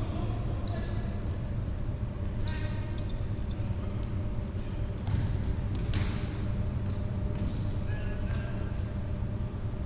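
Indoor futsal game: a ball being kicked and bouncing on a wooden sports-hall floor, with short high squeaks of shoes on the boards. A sharp kick about six seconds in is the loudest sound.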